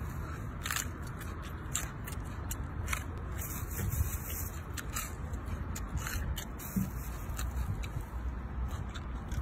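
Scattered small wet clicks and crackles of a sauced piece of seafood being handled and then bitten into near the end, over a steady low background rumble.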